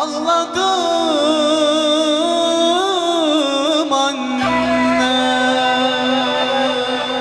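Man singing a slow Turkish devotional song into a microphone, a wavering, ornamented melody over sustained instrumental backing. The melody gives way to held chords about four seconds in.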